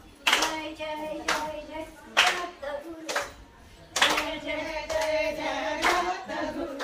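A group of women singing a Gauri jagran folk song together and clapping in time, about one clap a second.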